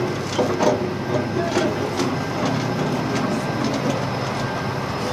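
Truck's diesel engine running steadily with a low hum, with scattered sharp metallic clicks and rattles.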